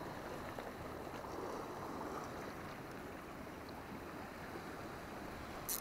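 Calm sea washing against a rocky shore, a steady soft rush of water, with one short click near the end.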